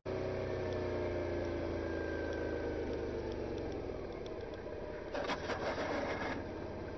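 Vehicle engine running with its pitch slowly falling, then about five seconds in a second-long burst of clattering knocks as a motorcycle goes down and strikes the road. Steady engine and road noise continue after the crash.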